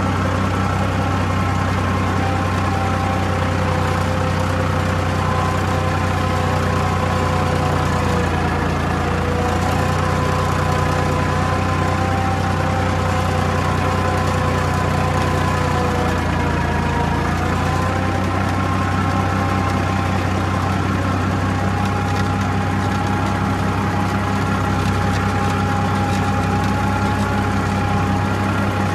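Farmtrac 60 Super Max tractor's diesel engine running steadily while working a laser land leveller, with a steady whine above the engine note that shifts slightly in pitch a couple of times.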